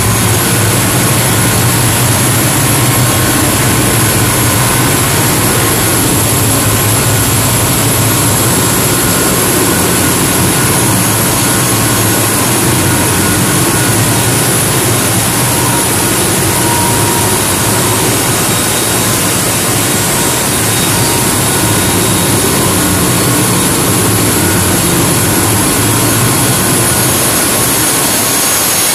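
Loud, steady running of a crew boat's main diesel engines, heard from inside the engine room while the boat is underway, with a constant low hum under a dense mechanical noise.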